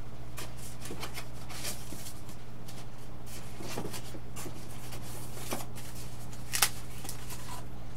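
Light rustling and handling noises as foam model-airplane parts are lifted out of a styrofoam box and turned over, with one sharper click late on. A steady low electrical hum runs underneath.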